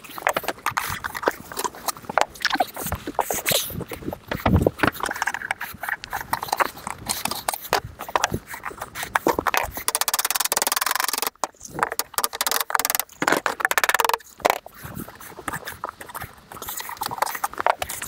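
Irregular knocking of a white-headed plastic hammer tapping sheet-metal roofing flashing into shape along a standing seam. About ten seconds in there is a steady hissing noise lasting a second or so.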